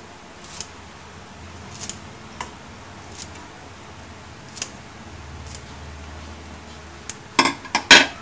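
Light, crisp snips and clicks, a few seconds apart, as handfuls of fresh cilantro are dropped onto a beef and bell-pepper stir-fry in an aluminium wok. A quick run of louder knocks comes near the end.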